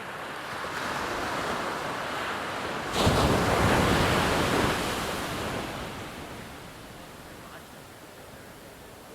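Ocean wave building, then breaking suddenly about three seconds in and washing out, fading over the next few seconds to a steady background surf.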